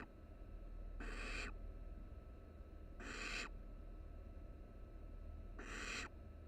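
Barn owl nestlings giving their rasping hiss calls: three long hisses, each about half a second, roughly two seconds apart, with the tail of another just at the start.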